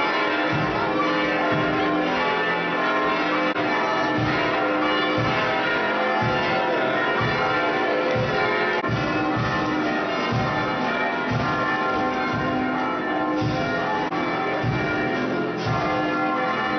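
Church bells pealing, many bells ringing over one another without pause.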